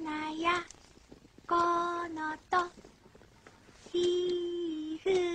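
A child's voice singing a simple unaccompanied tune in short held phrases, with pauses of about a second between them.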